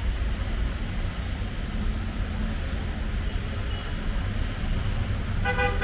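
Steady street traffic noise with a low rumble, and a vehicle horn sounds briefly near the end.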